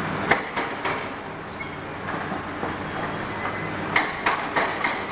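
City street traffic with trolleybuses: a steady rumble with a thin high whine over it, a few sharp clicks in the first second, and from about four seconds in a regular run of clicks, about three a second.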